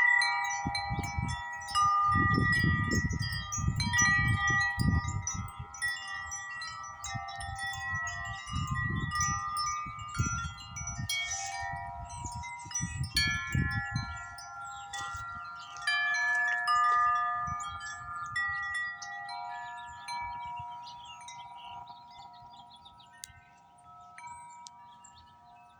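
Wind chime ringing in gusty wind, many overlapping tones sounding at once. Wind rumbles on the microphone through the first half; after that the ringing thins out and slowly fades.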